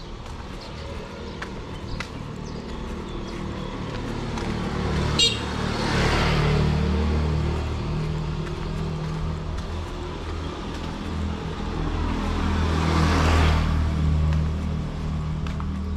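Street traffic: motor vehicles passing close by, one swelling and fading about six seconds in and another near thirteen seconds, over a steady low engine hum. A brief horn toot sounds just before the first pass.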